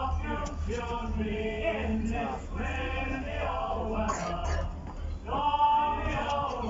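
Men's voices singing a song together, choir-like, with long held notes, over a low steady rumble.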